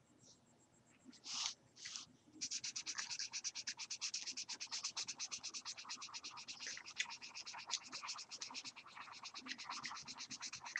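Felt-tip marker colouring on paper: two single strokes about a second in, then rapid, steady back-and-forth scribbling from about two seconds in.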